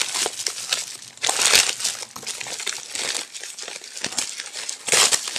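Plastic wrapping crinkling and crackling in irregular bursts as a wrapped gift is handled and unwrapped by hand, louder about a second and a half in and again near the end.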